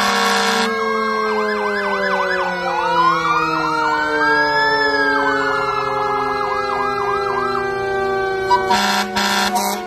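Several fire engine sirens sounding together: electronic sirens cycling through fast yelps and a long rising-and-falling wail, over a lower siren tone that slowly falls in pitch. Blasts of air horn sound at the start and again near the end.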